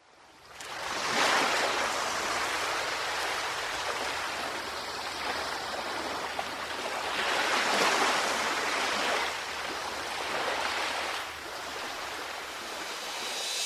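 Ocean surf washing in, swelling and falling back every few seconds.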